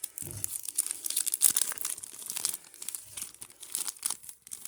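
Packaging being unwrapped by hand: irregular crinkling and tearing.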